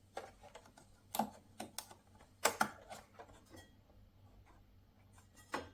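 Scattered small clicks and taps, loudest about a second in and about two and a half seconds in, from the retaining clips and memory modules inside an all-in-one PC as the installed RAM sticks are unclipped and pulled out.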